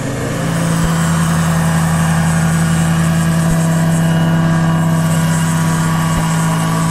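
Radio-controlled scale model EC 145 helicopter running at flight speed, a steady whirring drone that rises slightly in pitch and level about half a second in as it lifts off into a low hover.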